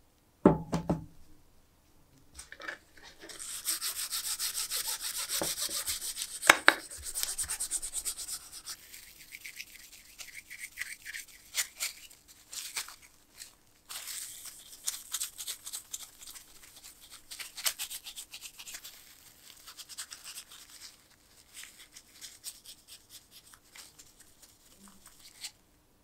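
Cloth soaked in acetone rubbed and scrubbed over small nickel-plated metal lighter parts, a hissy wiping in irregular strokes. Two sharp knocks of parts handled on the wooden bench, one just after the start and one about six and a half seconds in.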